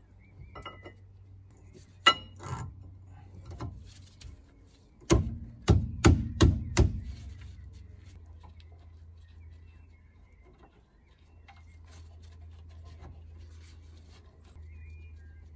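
Metal clinks and knocks of brake pads being seated in the caliper bracket and the brake caliper being slid back over them, scattered at first, then a quick run of about six sharp knocks a little past halfway, the loudest part.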